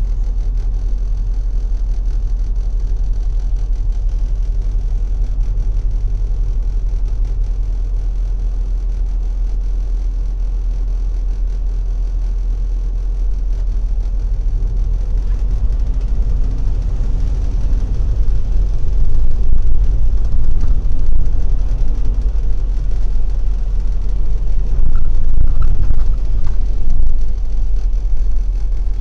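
Moving city bus heard from inside: a steady low engine and road rumble that grows louder about two-thirds of the way in.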